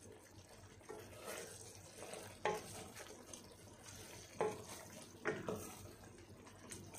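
A spatula stirring chicken curry in a stone-coated pot, over a faint sizzle from the pot. A few light knocks of the spatula against the pot come about two and a half, four and a half and five and a half seconds in.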